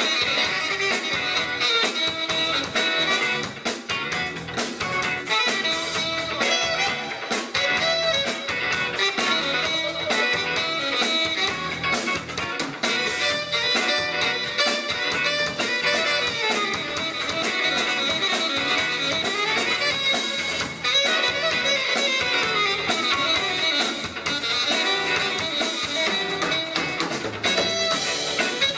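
Live band playing an instrumental jazz tune: saxophone, electric bass, drum kit, keyboard and electric guitar together.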